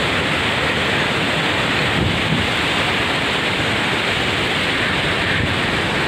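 Steady rush of river water tumbling over rocks at a waterfall's rapids, an even noise that holds level throughout.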